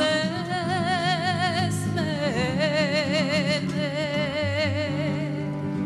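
Live sevdalinka: a woman's voice holding long notes with wide vibrato, sliding down to a new note about two seconds in, over the band's guitar and bass accompaniment.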